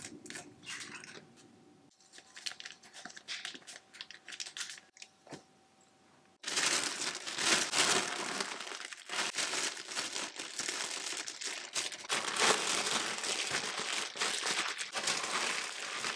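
Thin plastic bag rustling and clicking as raw eggs are cracked into it over marinating pork chops. About six and a half seconds in it turns to loud, continuous crinkling as the meat is kneaded through the bag.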